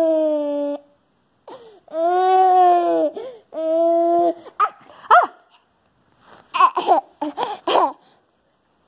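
Baby laughing: three long, held vocal cries in the first half, then a run of short, quick giggles about six to eight seconds in.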